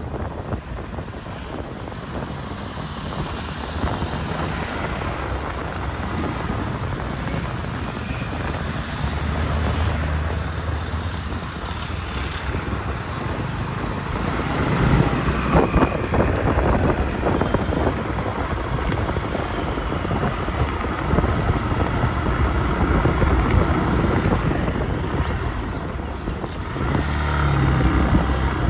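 Motorcycle on the move: engine running with road and wind noise on the microphone, swelling louder about halfway through and again near the end.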